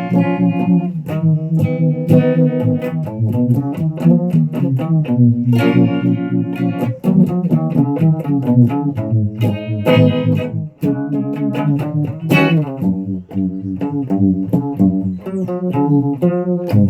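Guitar playing: chords and quickly picked notes, with a slide up in pitch about twelve seconds in.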